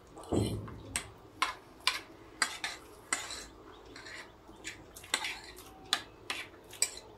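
A metal fork clinking and scraping against a plate as instant noodles are gathered up, with repeated sharp clinks about two a second. Just after the start comes a louder slurp as a forkful of noodles is sucked into the mouth.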